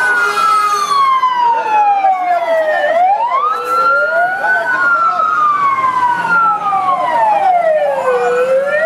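Fire engine sirens wailing, two of them at once, each slowly rising and falling in pitch out of step with the other.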